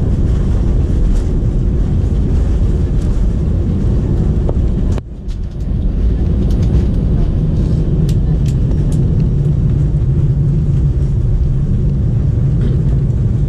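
Cabin noise inside an Airbus A320 with CFM56-5B engines rolling out on the runway after touchdown: a loud, steady rumble of engines and wheels. The sound drops out briefly about five seconds in, and a low hum grows stronger after that.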